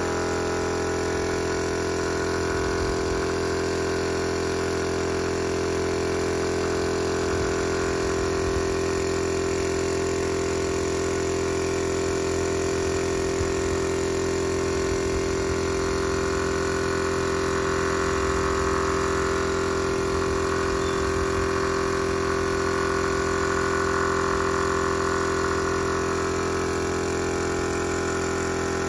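Small air compressor running steadily with an even hum while it supplies air to paint spray guns, with the hiss of spraying over it.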